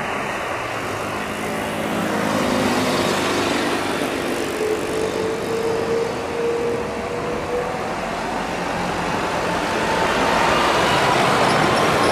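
Airbus A330's Rolls-Royce Trent 700 turbofans spooling up for takeoff as the jet rolls down the runway: a rising whine over a steady rumble, growing louder toward the end.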